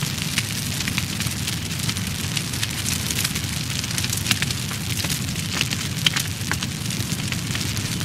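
A fire burning: a steady low roar under dense, irregular crackling, with a louder pop about four seconds in and another about six seconds in.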